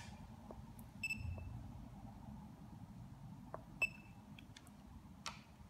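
Handheld CT210 coating thickness gauge giving two short high-pitched electronic beeps, almost three seconds apart, as it is switched on and its keys are pressed. Faint clicks of the keys and of handling come between them.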